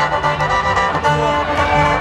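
Khaen, the Isan bamboo mouth organ, playing held reedy chords over a steady drone as accompaniment for lam klon singing, with conga drums beating underneath.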